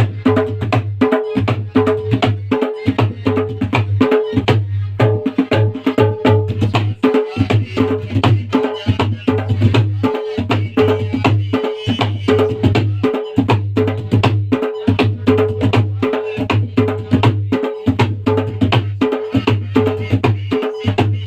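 Tabla playing a steady, fast folk rhythm: ringing treble-drum strokes repeating over deep bass-drum strokes, without a break.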